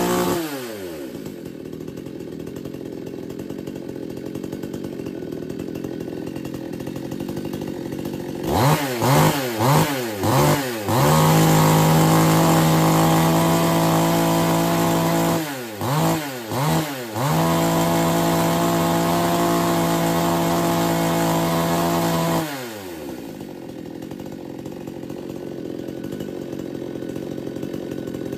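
Aryantra 58cc two-stroke chainsaw engine running: it falls from high revs to a steady idle, then is blipped about four times in quick succession and held at high revs, blipped three more times and held high again for about five seconds, and finally drops back to idle.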